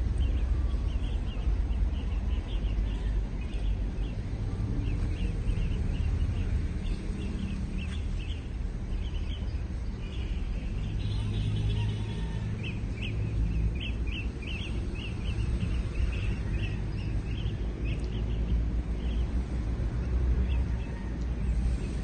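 Small birds chirping repeatedly in short notes over a steady low rumble of outdoor background noise.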